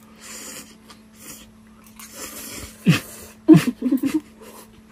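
A person slurping hot instant ramen noodles in a few breathy draws, then several short voiced sounds from the eater about three and a half seconds in.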